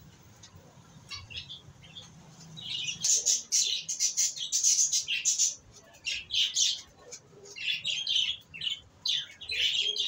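Birds chirping and squawking in rapid, loud clusters of high calls from about three seconds in, with short pauses between clusters; only a few faint calls before that.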